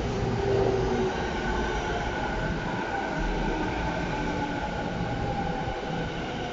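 A 15-car commuter electric train pulling in along the platform. It runs with a steady rumble and a few held whining tones from its motors and wheels.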